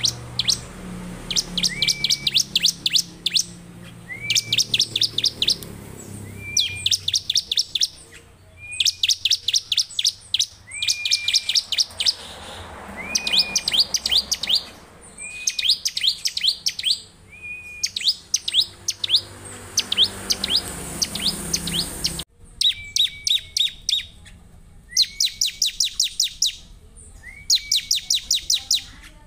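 Bar-winged prinia (ciblek) singing vigorously and repeatedly: each phrase is a short level note followed by a fast run of six to eight high, sharp chips, with phrases coming about every two seconds. A low background rumble cuts out abruptly about two-thirds of the way through.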